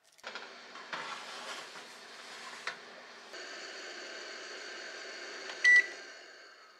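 A few knocks and clicks, then a steady hum while a combination microwave oven is set for baking at 180°C. About two-thirds of the way in, its control panel gives one short, loud beep as the start button is pressed, and the hum fades after it.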